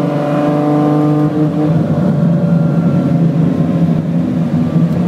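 Ferrari 599XX's V12 engine heard from inside the car, holding a steady note, then changing to a lower, rougher sound about a second and a half in.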